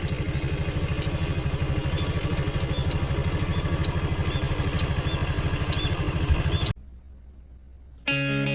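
Small 50cc moped engine idling with a steady, rapid putter, which stops abruptly about two-thirds of the way in. Guitar music starts near the end.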